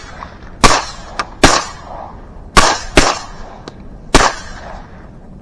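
Shotgun blasts at ducks over the decoys: five loud shots in about four seconds, irregularly spaced, each trailing off in a short echo, with a couple of fainter shots between them.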